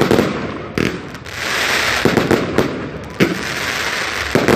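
Pyrotechnic display heard from close range: about six sharp bangs, from mortars firing and shells bursting, with a continuous hiss between them.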